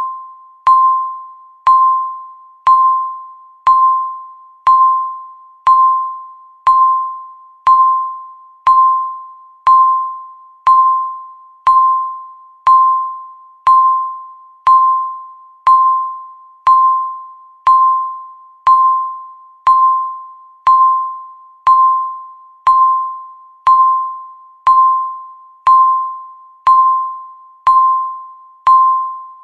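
Countdown timer's beep sounding once every second, each one a single clear tone that starts sharply and fades away before the next: each beep marks one second ticking off the countdown.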